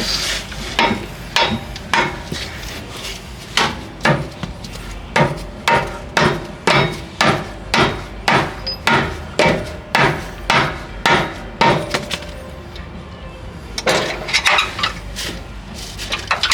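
Hammer blows on the car's steel suspension parts, a steady run of strikes about two a second, as the old lower control arm and ball joint are knocked loose. The hammering pauses for about two seconds near the end, then a few more blows follow.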